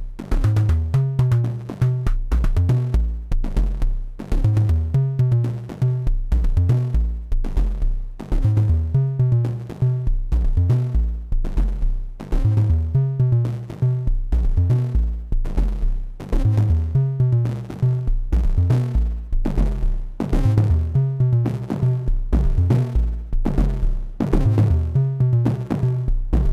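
Two Slim MPS eurorack analogue percussion synthesizer modules, a version of Thomas Henry's Mega Percussive Synth, playing a sequenced drum pattern: rapid synthesized percussion hits over deep pitched drum tones, the pattern repeating about every four seconds.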